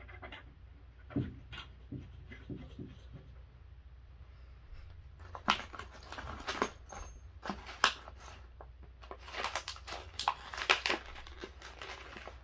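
A few soft thumps in the first three seconds, then a clear plastic hardware bag crinkling and rustling in irregular bursts as hands work through it, from about five seconds in.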